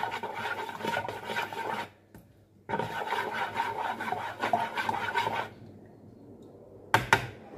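A spoon stirring and scraping round a plastic measuring jug of lamb milk mixed from powder, in two spells of about two and three seconds. A couple of sharp knocks follow near the end.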